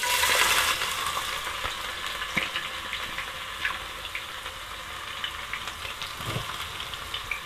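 Chopped onion hitting hot soybean oil and frying: a loud sizzle that starts suddenly, eases after about a second, and settles into a steady sizzle with small pops.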